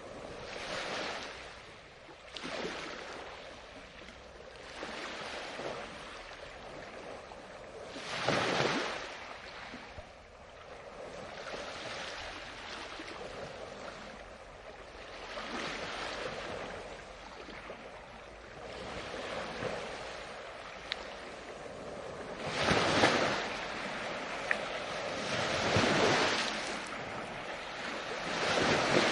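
Ocean waves breaking and washing in, rising and falling every few seconds, with a louder breaker about a third of the way in and three louder ones near the end.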